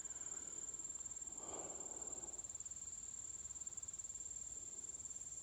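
Steady high-pitched insect chorus: a continuous, unbroken trill of crickets or similar insects.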